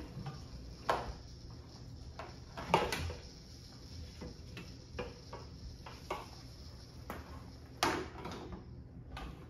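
Pressure washer hose being wound by hand onto a steel Coxreels hose reel: irregular knocks and clunks of the hose and drum as the reel is turned, the loudest about three seconds in and again near the end.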